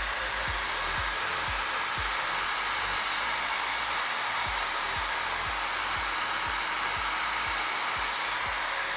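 Desktop PC's cooling fans running with a steady whooshing hum, with a faint low thump about twice a second underneath.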